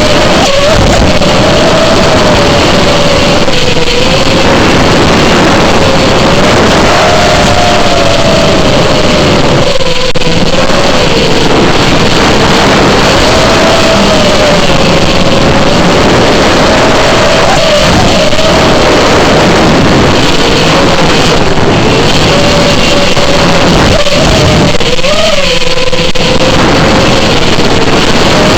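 FPV quadcopter's motors and propellers, heard very loud with dense noise, their whine rising and falling in pitch every few seconds as the throttle changes.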